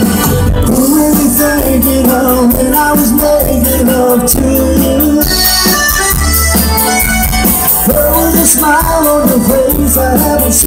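Live Tex-Mex band playing over a PA, with accordion, electric guitars, bass and drums and a steady beat throughout, heard from the crowd.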